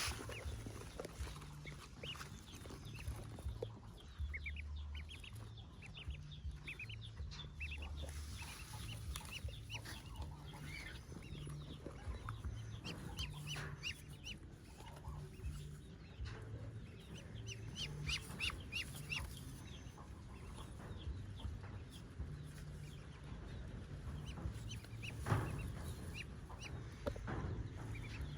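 Newly hatched ducklings peeping in many short, high cheeps, mixed with low clucking from the brooding mother bird.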